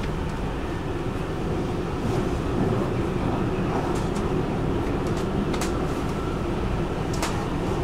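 Stockholm metro train running at speed, heard from inside the passenger car: a steady rumble of wheels on rails with a few sharp clicks, the loudest two in the second half.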